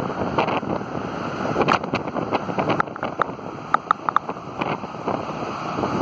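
Heavy storm surf crashing and churning against a rocky headland, under loud wind buffeting the microphone. Several short, sharp crackles cut through, a cluster of them about four seconds in.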